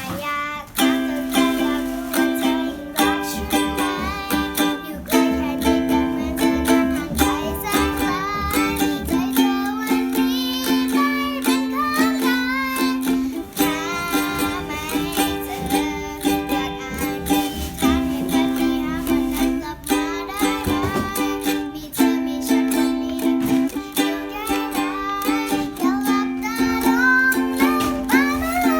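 Khim, the Thai hammered dulcimer, playing a pop song melody in quick struck notes over a backing track with a low beat.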